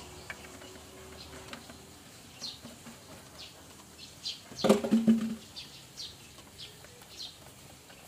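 Small birds chirping now and then, short high chirps spaced irregularly. About halfway through, a brief clunk and rustle as a plastic oil jug is handled, the loudest sound.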